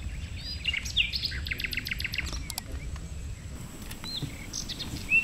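Small birds chirping in quick series of short, repeated high notes, mostly in the first half and again near the end, over a low steady background rumble.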